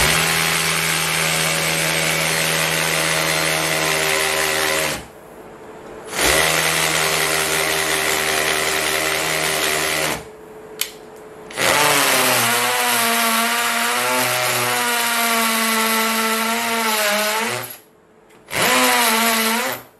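Bosch GSB 120-LI cordless hammer drill driver drilling into a brick wall with a masonry bit, running in four bursts with short pauses between them. During the longer third burst the motor's pitch wavers as the bit bites into the wall.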